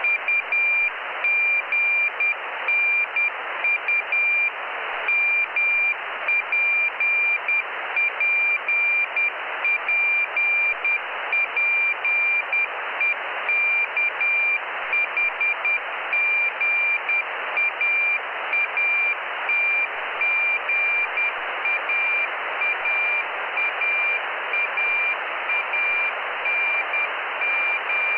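Morse code (CW) telemetry beacon from the Jugnu nanosatellite, heard through a radio receiver. A high steady tone is keyed on and off in dots and dashes over a bed of receiver hiss, and the hiss grows a little against the tone toward the end.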